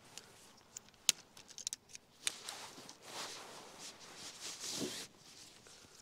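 Camping gear being handled: a quick run of sharp clicks and taps, then a few seconds of rustling that swells and stops near the end.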